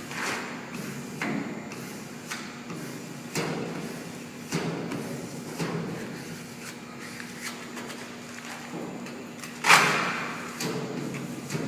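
Squeegee strokes rubbing a vinyl decal down onto a roll-off container's panel: a scraping swish about once a second, with one louder knock near the end.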